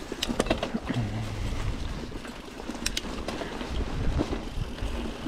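Mountain bike being ridden: a steady noise of tyres and moving bike, with scattered sharp clicks and knocks from the chain and frame, and wind rumbling on the chest-mounted microphone.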